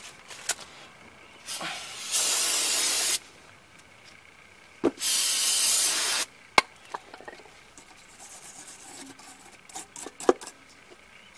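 Aerosol cleaner sprayed in two bursts of about a second each onto a brake caliper mounting bracket to wash off old grease. Near the end, a wire brush scratches at the bracket in short strokes, with a few light knocks.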